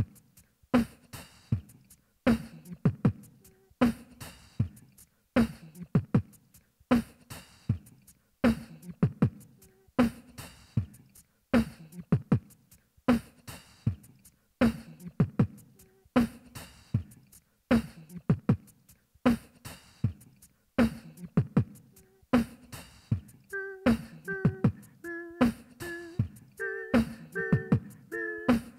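Beatboxed beat used as background music: a steady, even beat of kick- and snare-like mouth sounds. About three-quarters of the way through, a pitched melodic line joins it.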